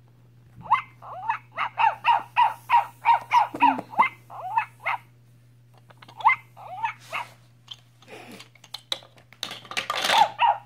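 Toy robot puppy giving electronic yips and barks from its small speaker: a quick run of short, chirpy barks at about three a second, then a few more after a pause. Near the end come sharp plastic clicks and clatter as small toy puppies are handled on a plastic slide.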